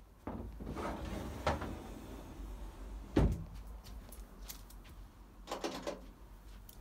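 Rustling and handling noise with a low rumble, one sharp knock a little over three seconds in, and a few lighter clicks and knocks near the end.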